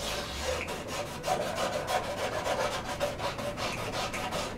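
Crayon scribbling fast on a stretched canvas: a dry scratchy rubbing in quick back-and-forth strokes, several a second.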